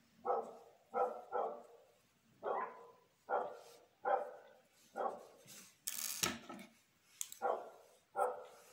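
A dog barking repeatedly, about ten short barks roughly a second apart. A louder, harsher noise comes about six seconds in.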